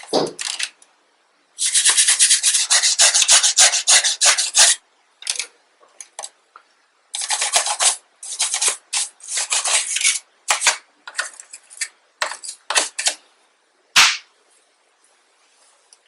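A toothbrush scrubbing dust off a PS4's plastic casing around the vents and USB port, in several runs of quick brush strokes. A single sharp knock about fourteen seconds in.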